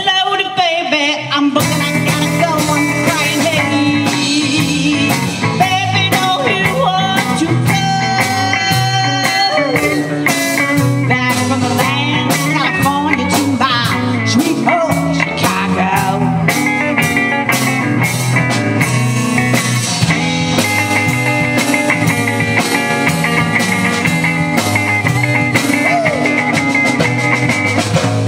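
Live rock band playing: two electric guitars over a drum kit keeping a steady beat.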